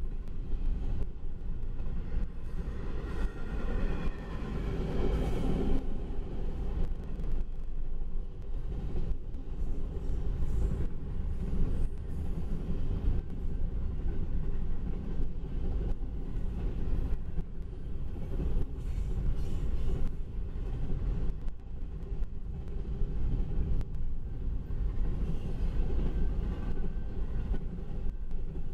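Double-stack intermodal container cars of a freight train rolling past at speed: a steady rumble with the clatter of steel wheels on rail. A brief higher-pitched ringing tone rises over it about three to five seconds in.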